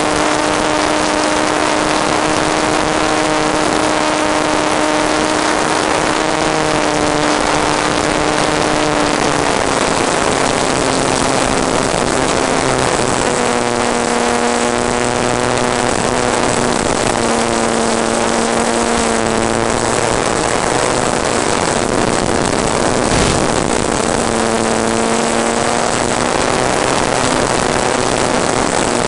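Model airplane's motor and propeller heard from on board over a steady rush of wind, the motor tone stepping down and up in pitch several times as the throttle changes.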